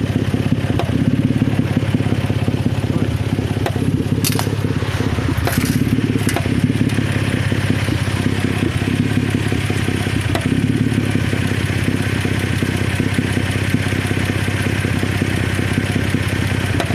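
Toyota 1MZ-FE V6 engine running steadily with a knocking rattle, with a few sharper clicks about four to six seconds in. The knock comes from the catalytic converter's broken-up core rattling inside, not from valves meeting pistons.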